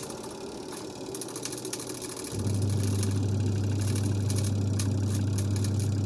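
Spin motor of a Sharp Aqua Magic twin-tub washing machine, cutting back in abruptly about two seconds in after a pause and then humming steadily. The spin section is sitting out of true, which the technician puts down to the motor mounting not being straight.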